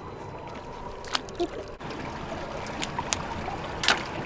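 Water trickling and lapping around a small boat, with a few sharp clicks scattered through, the loudest near the end.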